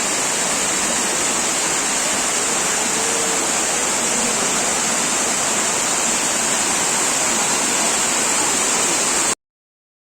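Waterfall: a steady, dense rush of falling water that cuts off suddenly near the end.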